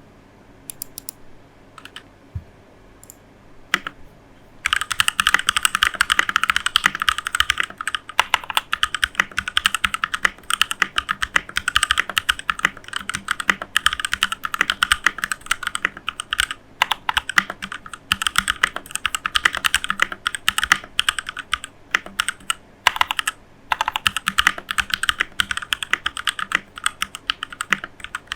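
Typing on a Keychron K2 V2 mechanical keyboard: a few scattered key presses, then fast, continuous typing from about four and a half seconds in, with short pauses. The microphone wobbles on the desk as the keys are struck.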